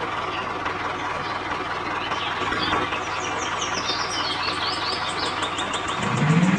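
A small motor running steadily as the toy tractor drives, with high chirps over it from about two seconds in and a rising whine near the end.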